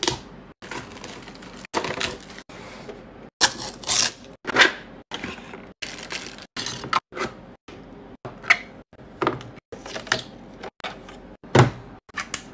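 Close-up unboxing sounds: a blade slitting packing tape on a cardboard box, a plastic bag crinkling, and plastic parts clicking. They come as short, sharp bursts broken by abrupt cuts to silence.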